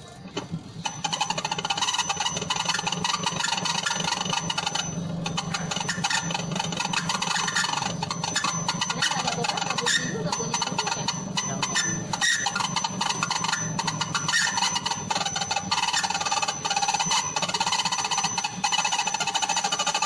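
Twin-tub washing machine's spin-dryer motor running. It starts about half a second in, with a dense, rapid clatter of clicks and a thin steady high whine over a low hum. This is the noise that the repairer puts down to a dry rubber centre coupling needing oil, or a slack brake cable.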